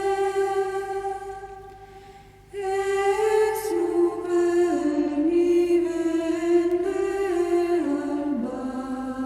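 Slow, calm music of long held, voice-like notes that step up and down in pitch; it fades away about a second in and a new phrase starts about two and a half seconds in.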